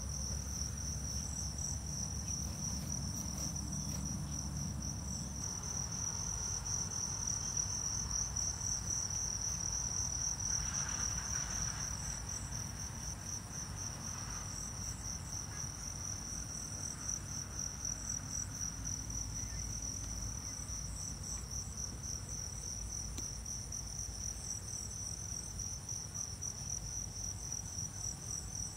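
Insects trilling in a steady, rapidly pulsing high-pitched chorus that goes on without a break.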